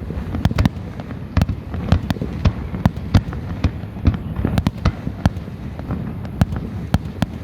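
Fireworks going off: many sharp bangs and pops at irregular intervals, several a second, over a steady low rumble.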